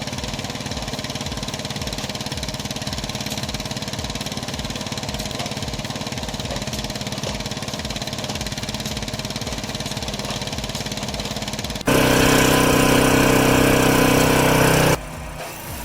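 Engine-driven machinery running steadily with a fast, even low pulse. About twelve seconds in, the sound cuts abruptly to a louder, steadier engine sound for about three seconds, then cuts again to a quieter one.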